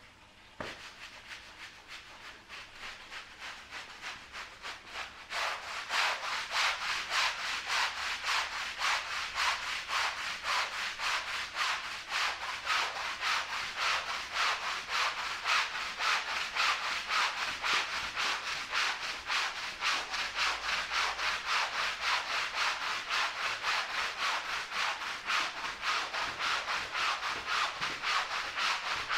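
Push broom scrubbing shampoo foam into a soaked Persian rug in quick back-and-forth strokes, about two or three a second, a wet rhythmic bristle scrub that gets louder about five seconds in.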